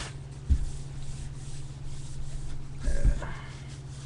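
Rubbing as a cloth wipes spilled lighter fluid off a Zippo lighter's metal case after overfilling, with a dull bump about half a second in and another around three seconds.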